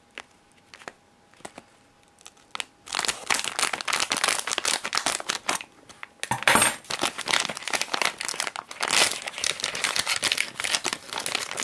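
Plastic packaging crinkling as a clear plastic bag and a silvery inner bag holding a small electronic adapter are handled and pulled open. A few light clicks at first, then continuous crinkling from about three seconds in.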